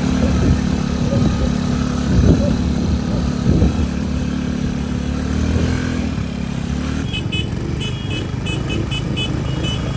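ATV engine running under way, its note easing off about seven seconds in. From then on come rapid, short high-pitched chirps.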